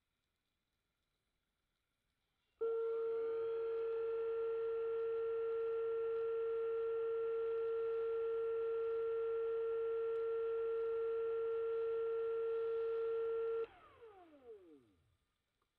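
A steady high motor whine that starts suddenly about two and a half seconds in, climbing briefly to speed, holds for about eleven seconds, then cuts off and winds down, its pitch falling away over a second or so.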